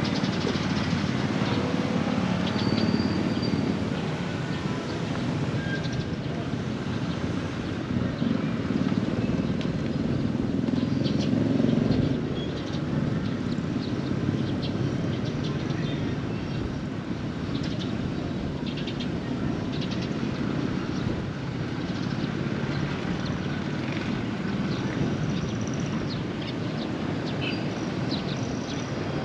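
Outdoor ambience: a steady rumble of traffic that swells around ten seconds in, with a few faint high chirps.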